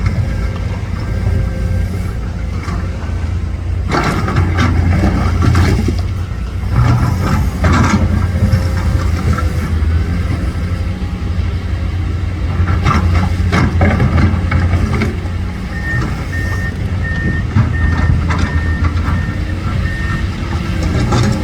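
Heavy diesel earthmoving machinery running steadily, with loud clanks and clatters several times. Near the end a reversing alarm beeps about twice a second.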